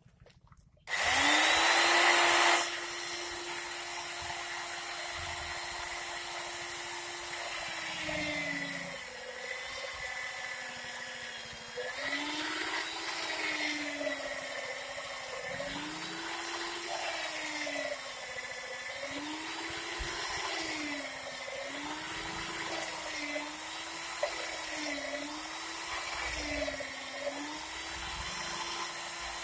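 Electric rotary hammer drill with a chisel bit chipping concrete. It starts about a second in with a loud burst for a couple of seconds, then keeps running, its motor pitch dropping each time it is leaned into the concrete and rising again as the load eases, more and more often toward the end.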